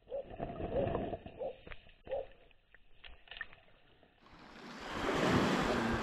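Muffled underwater gurgling and bubbling of seawater with scattered knocks. About four seconds in, this gives way to a steady rush of small waves washing onto a pebble beach, with wind.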